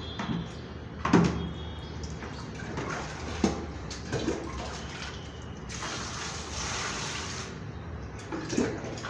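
Water splashing and sloshing in a plastic bucket as a paper conch shell is dipped and handled, with a few louder splashes about a second in, around the middle, and near the end, over a steady rush of water.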